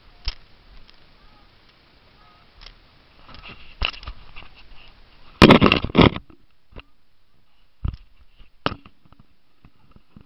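Close handling noise on a small camera: fingers rubbing over its microphone. There is a loud burst of rubbing and scraping about five and a half seconds in, lasting under a second. Several sharp knocks follow as it is set down in the bottom of a boat.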